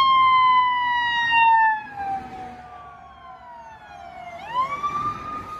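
Fire rescue truck's siren wailing as the truck passes, loud at first, then its pitch falling slowly as it fades away. About four and a half seconds in, a second emergency vehicle's siren starts a rising wail and holds at the top.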